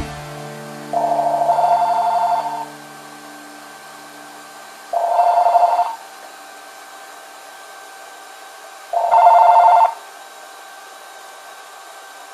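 AT&T cordless phone handset ringing for an incoming call with an electronic trilling ring: three rings, each about a second long, about four seconds apart.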